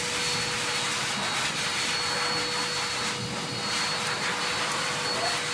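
Steady whooshing drone of an electric fan motor running, with a thin steady whine in it. Faint snips of grooming scissors cutting the hair on a dog's paw come through now and then.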